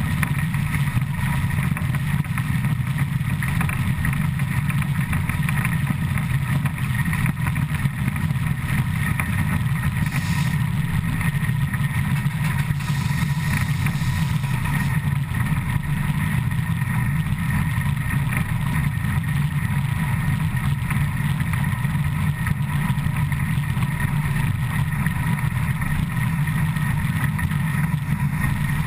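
Steady, loud rumble and rush of ČSD 475.179's driving wheels and running gear rolling on the rails at about 100 km/h, heard from right beside the wheels.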